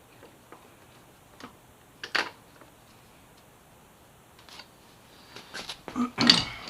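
Scattered light metallic clicks and taps as parts and a bolt are handled and the bolt is started by hand into a motorcycle's rear-set bracket. There is a sharper clack about two seconds in and a louder clatter near the end.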